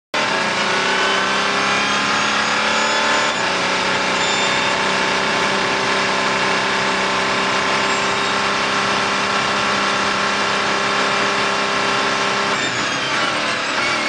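Audi R18's V6 turbodiesel hybrid racing engine at full throttle, heard from inside the cockpit. The engine note rises and steps about three seconds in, then holds steady down the straight. Near the end it falls away as the car slows for the corner.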